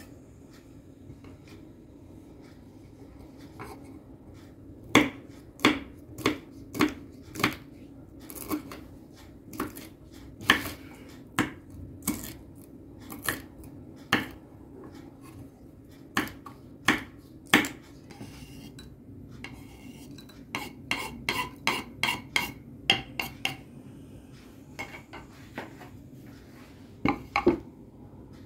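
Kitchen knife slicing small chillies on a wooden cutting board: sharp knocks of the blade hitting the board, one or two a second, then a quicker run of lighter chops, and a couple more knocks near the end.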